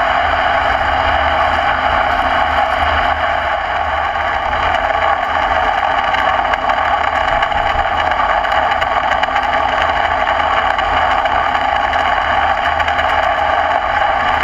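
Large engine lathe, an American Pacemaker 20x192, running steadily while a carbide tool cuts into a spinning steel hydraulic cylinder at its blind-end weld, with a low hum under the cutting noise.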